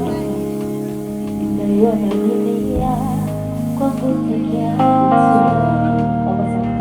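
Live band music for a slow love song at a sound check: guitar and sustained chords, with a voice singing short wavering phrases.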